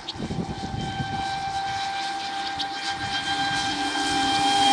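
Traxxas Spartan RC speed boat's brushless electric motor running flat out on 6S power: a steady high-pitched whine that creeps up slightly in pitch and grows louder near the end, over a rough rushing noise of the hull on the water.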